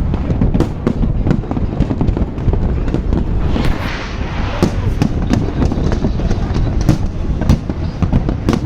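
Fireworks display: a rapid, irregular series of sharp bangs and deeper booms over a continuous rumble, with a stretch of hissing crackle about four seconds in.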